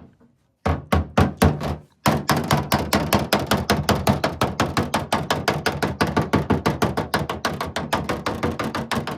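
Hammer tapping on a steel car body panel to work out a small dent: a few blows, a short pause about two seconds in, then a fast steady run of light taps, several a second.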